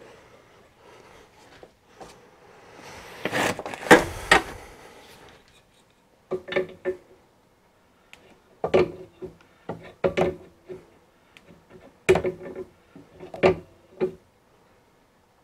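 Metal-on-metal clinks and scrapes as a hole saw is fitted onto a homemade arbor clamped in a drill-press vise. A rustling scrape with a few sharp clicks comes a few seconds in. Then come about six short bursts of clinks, each with a brief ring.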